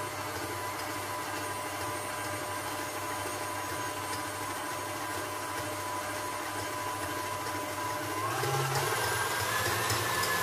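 KitchenAid Artisan stand mixer running steadily, its wire whisk beating whipped-cream powder with milk into a cream. About eight seconds in its hum gets a little louder, with a slightly rising whine.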